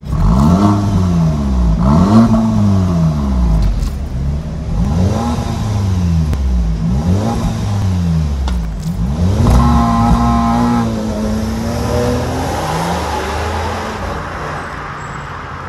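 Volkswagen Tiguan revving through an aftermarket CGW valved exhaust with the resonator removed. It gives about six quick rev blips, then holds a longer rev about ten seconds in, and falls away near the end.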